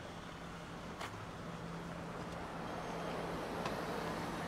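Town street ambience with road traffic: a car's tyres on the road, growing louder toward the end, over a steady low hum, with a couple of faint clicks.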